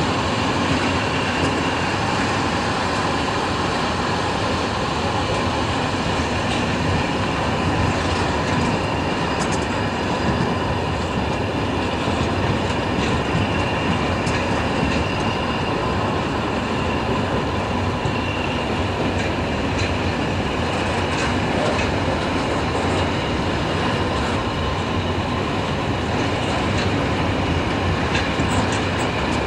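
A long train of railway vans or coaches passing close by on the main line: a steady rumble of wheels on rails, with light clicks over the rail joints.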